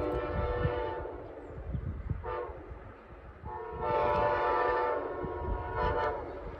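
Amtrak train's Nathan K5LA five-chime air horn sounding in a series of blasts: a long blast that ends about a second in, a short toot, a second long blast, then another short toot near the end. A low rumble runs underneath.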